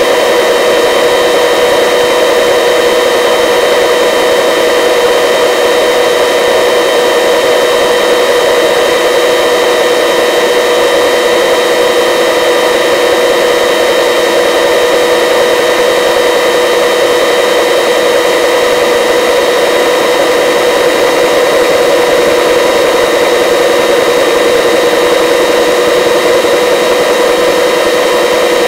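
Helicopter engine and rotor running in flight: a constant drone with a few high tones held over a hiss.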